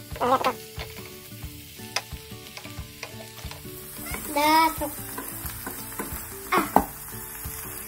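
A spoon beating eggs in a ceramic bowl, knocking against the sides in sharp clicks, over the sizzle of onion and minced meat frying in a pan. A short voice-like sound comes about halfway through, and a louder run of clicks near the end.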